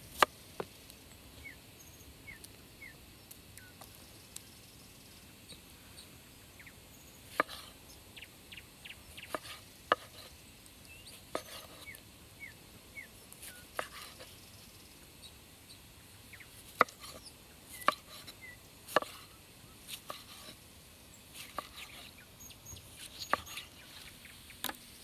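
Broad-bladed knife slicing carrots and tomatoes on a wooden cutting board: irregular sharp knocks of the blade meeting the board, sometimes a few in quick succession. Faint short bird chirps are heard between the cuts.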